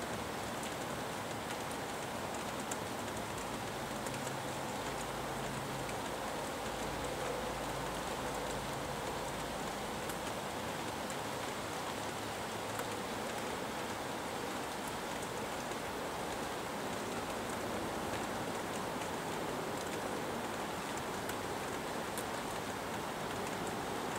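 Steady rain falling, with occasional sharp drip ticks. Underneath is a low rumble that swells and fades, from freeway traffic.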